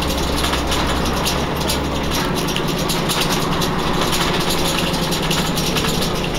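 Volvo Olympian double-decker bus engine running, heard from the upper deck, with steady rattling from the body and fittings. The deep engine note shifts about two seconds in.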